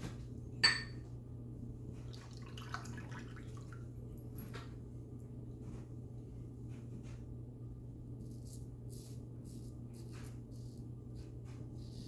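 A single sharp clink with a brief ring about a second in, then from about eight seconds in a run of short, soft scraping strokes about two a second, typical of a safety razor cutting stubble on a shaving pass.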